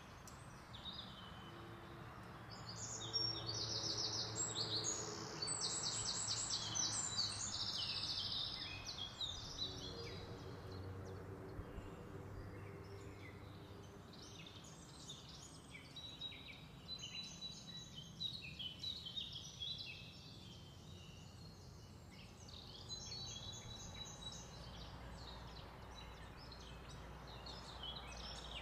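Birds chirping and trilling in quick high runs, heard faintly over steady background noise.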